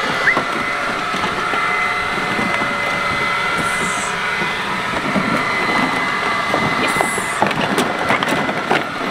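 Ryobi leaf blower running steadily, a rushing blast of air with a constant high whine, aimed at a kiddie pool filled with empty plastic water bottles. Brief crinkles and knocks of the plastic bottles are scattered through it.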